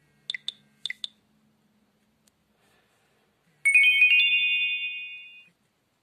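Nokia 5800 XpressMusic's preloaded message alert tones playing as previews: two pairs of short high beeps, then about three and a half seconds in a chime of quick notes that rings on in several held tones and fades away.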